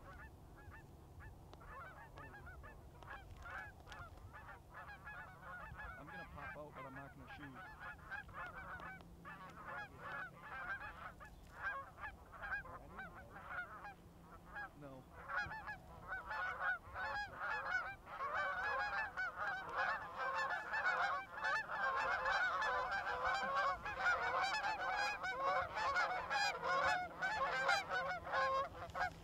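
A large flock of Canada geese honking and cackling, many overlapping calls. They are faint and scattered at first, then grow steadily louder and denser from about halfway through as the flock comes in close.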